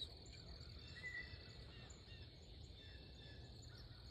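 Near silence: faint woodland ambience of small birds chirping, one chirp a little louder about a second in, over a low steady rumble.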